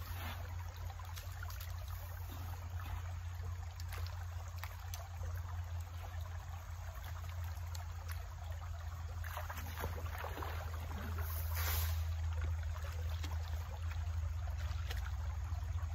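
Creek water running and trickling through a small gold sluice box, with a few short splashes as hands work in the water at the sluice, over a steady low hum.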